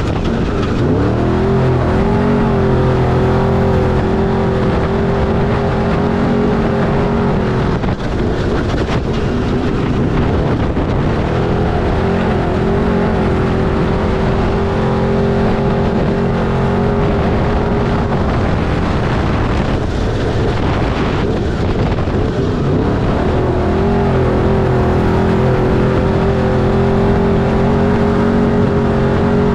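Off-road race truck engine pulling hard at a steady high pitch for long stretches. It eases off about eight seconds in and again around twenty seconds in, then climbs back up to the same steady pitch, with rough noise throughout.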